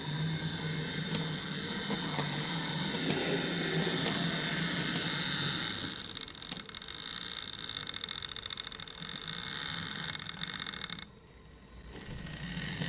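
OO gauge model train, a Class 03 diesel shunter hauling cement tank wagons, running along the track: a steady high-pitched motor whine over a low hum, with a few sharp clicks from the wheels on the rails. The sound cuts off abruptly about eleven seconds in and returns near the end.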